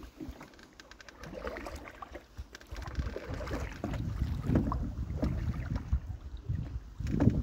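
Canoe under way with paddle strokes and water swishing along the hull. Wind buffets the microphone, growing louder from about three seconds in.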